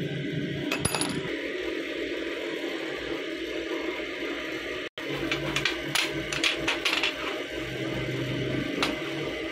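Flat steel knife blanks clinking against each other and the steel bench top as they are handled and laid down: a few light metallic clinks about a second in, then a quick cluster of clinks around six to seven seconds in and one more near the end, over a steady low hum.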